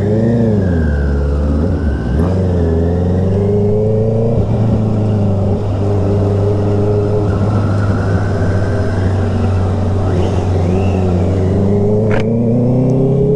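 Sport motorcycle engine running under way, its pitch climbing and dropping several times as the throttle opens and closes, over a steady low rumble.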